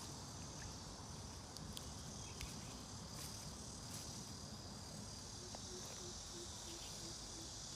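Crickets chirping in a steady, high-pitched chorus, with a few faint clicks.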